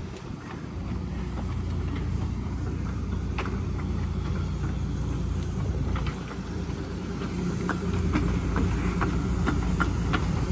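15-inch gauge railway locomotives running: a steady low rumble, and from about three-quarters of the way in a quickening run of sharp clicks as a steam locomotive and its carriages move off past.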